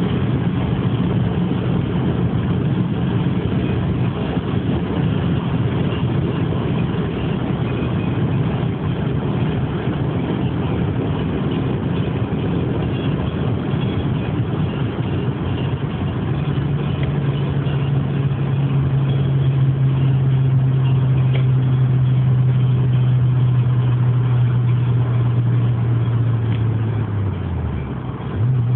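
Audi A3 1.8T turbocharged four-cylinder engine running hard at high speed on a top-speed run, heard from inside the cabin as a steady drone over heavy wind and road noise. Near the end the engine note drops away for about a second and then comes back.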